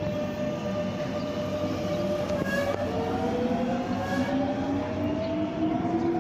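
Madrid Metro electric train pulling out of a station, its motors giving a whine that rises steadily in pitch as it accelerates over a steady rumble of wheels on rail.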